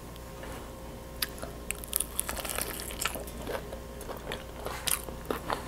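Biting into and chewing crispy fried chicken: scattered crisp crunches of the breaded crust, starting about a second in.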